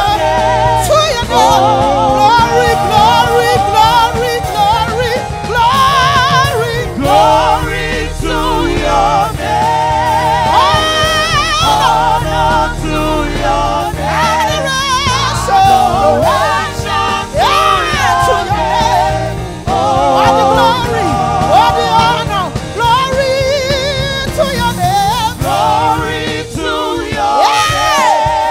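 Live gospel praise song: a woman's lead voice with strong wavering vibrato, joined by backing singers, over a band of drums, keyboard and guitar.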